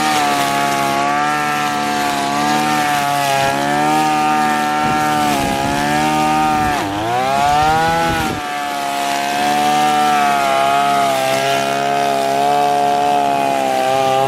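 Two-stroke brush cutter engine running at high revs, its pitch wavering a little; about seven seconds in it drops sharply and climbs back up.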